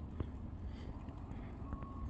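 Wind rumbling on the microphone outdoors, with a single sharp click a fraction of a second in and a brief faint high tone near the end.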